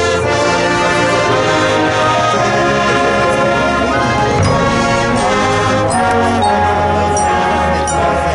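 Marching band playing, the brass holding sustained chords that move from one to the next, with a few short high ringing notes in the second half.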